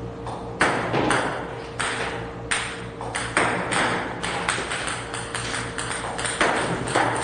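Table tennis balls fired by a ball-serving robot striking the table, a string of sharp clicks a few times a second that come faster after the first few seconds.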